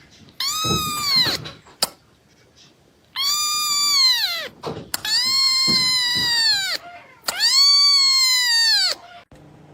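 Cat meowing loudly in four long, drawn-out calls, each rising and then falling in pitch.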